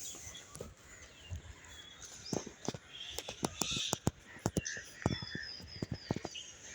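Birds calling and chirping, with scattered calls and short pitch glides, over irregular clicks and knocks typical of footsteps on a trail.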